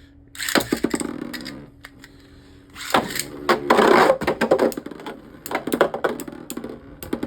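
Beyblade spinning tops launched and clashing in a battle. Two loud bursts come about half a second and about three seconds in, each followed by rapid sharp clicks and knocks, thinning to scattered clicks near the end.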